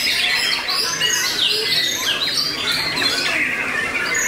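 Continuous song of caged songbirds, a white-rumped shama (murai batu) among them: many fast whistles, trills and sliding notes overlapping with no pause.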